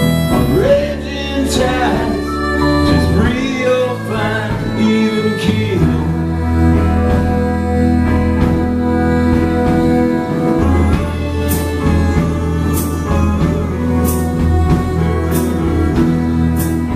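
Live band playing an instrumental passage on electric guitars, bass and violin, with sliding melody lines over the chords for the first few seconds. From about halfway, sustained chords with a cymbal hit about every second and a bit.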